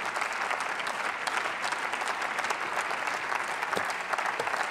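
Steady applause from a large group of people clapping.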